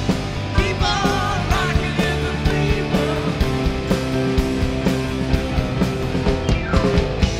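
Live rock band playing: a male singer over electric guitars and a drum kit keeping a steady beat.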